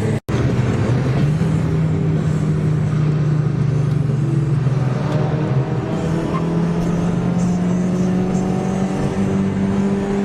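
Car engine running under load, its pitch stepping up about a second in and then holding fairly steady, with music playing over it.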